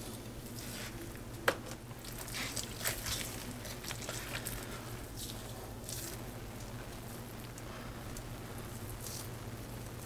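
Hands tearing and shredding the meat of a rotisserie chicken: scattered soft, wet squishing and tearing sounds, with one sharp click about a second and a half in, over a low steady hum.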